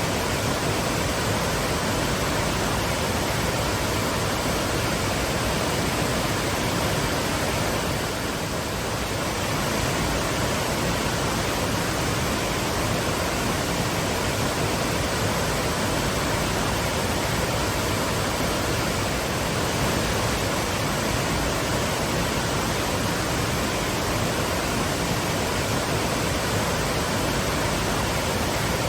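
Twin waterfalls pouring with a steady, full rush of falling water.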